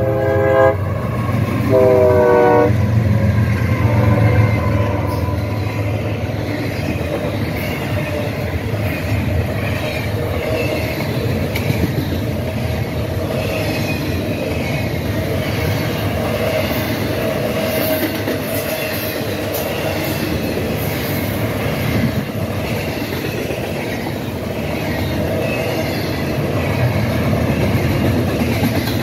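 BNSF diesel freight locomotives pass close by, their horn ending a blast just after the start and giving one more short blast about two seconds in. Then a long train of double-stack container well cars rolls past with a steady rumble and clattering wheels on the rail joints.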